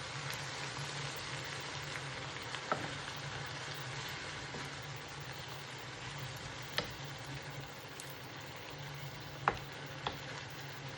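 Food frying in a pan: a steady sizzle, with a few sharp taps of a utensil against the pan about three, seven, nine and a half and ten seconds in. A low steady hum runs underneath.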